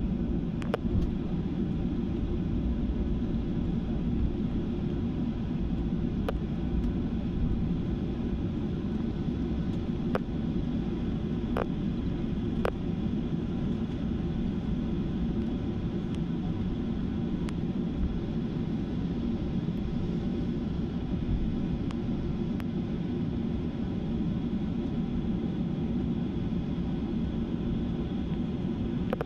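Cabin noise inside a Boeing 737-800 taxiing: the steady low rumble of its CFM56 jet engines and the airframe, with a few faint clicks.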